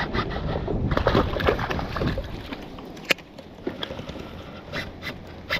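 Water and handling noise aboard a fishing kayak, rumbling for the first couple of seconds, then quieter, with a few sharp clicks or knocks in the second half.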